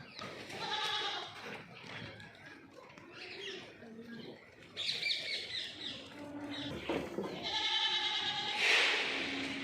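Goats bleating, several separate calls from the herd, Berari goats. Near the end comes a short burst of noise, the loudest moment.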